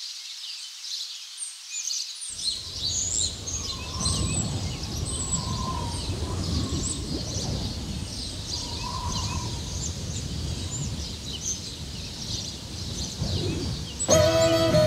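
Many birds chirping and calling together over a steady low rumble of outdoor background noise that comes in about two seconds in. Music with plucked strings starts just before the end.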